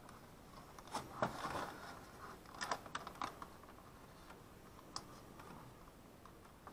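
Small plastic clicks and rustling as hands pull a nylon cable tie around a bundle of wires and handle the wiring, in a few short clusters about a second in, around three seconds in, and once near five seconds.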